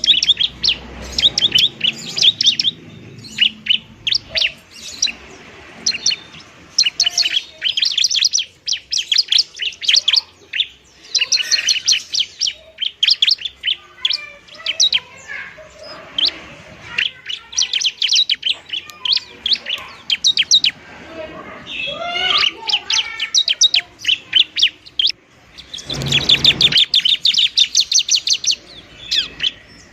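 Ciblek (bar-winged prinia) singing its fast, chattering 'fighting' song: rapid trains of sharp, high chirps in repeated bursts with short gaps between them. It is the kind of song used to lure ciblek and to spur silent ones into singing. About 26 s in there is a brief louder burst with a low thump-like component.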